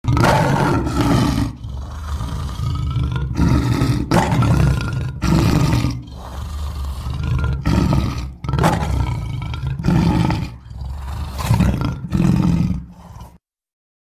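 Designed Smilodon (saber-toothed cat) creature sound effect: a string of loud roars, about eight, with lower growling between them. It cuts off abruptly near the end.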